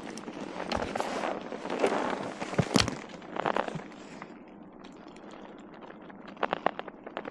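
Rustling handling noise with a few sharp knocks about two and a half seconds in, then quieter, with a quick run of clicks near the end.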